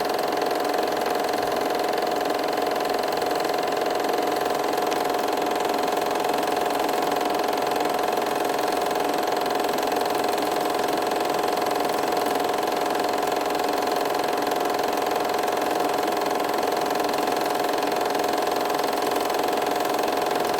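A machine running steadily with an unchanging hum.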